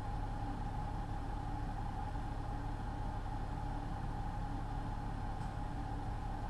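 Semi truck's diesel engine idling steadily, heard from inside the cab.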